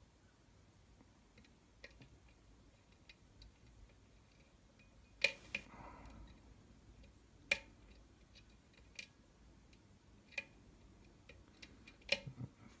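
Sparse, sharp clicks and small metallic ticks from a lock pick and tension wrench working the security pins of a challenge-pinned Falcon pin-tumbler lock during single-pin picking. The loudest clicks come a little past a third of the way in, with a short run of clicks near the end.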